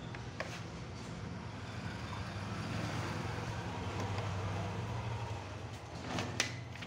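Samsung Xpress M2876ND laser multifunction printer running as it copies, a steady low mechanical hum, with a sharp click about six and a half seconds in as a printed page feeds out.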